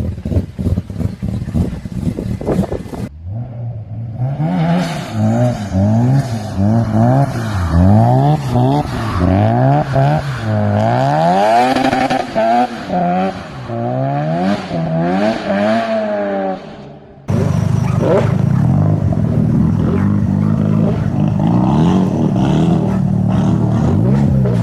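Rotary car engines in several back-to-back clips: crackling exhaust pops for the first three seconds, then an engine revved up and down rapidly over and over, then from about seventeen seconds in, a steadier running engine.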